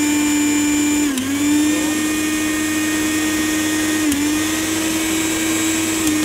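Lifelong Maxo 500-watt mixer grinder motor running with no jar fitted, a loud steady whine. The pitch dips briefly and recovers twice, about a second in and about four seconds in, as the speed knob is switched through its positions.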